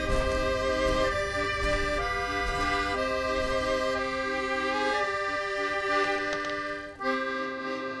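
Soundtrack music: held chords and a slow melody on a sustained-tone instrument, the notes changing about once a second. It breaks off briefly about seven seconds in, then resumes.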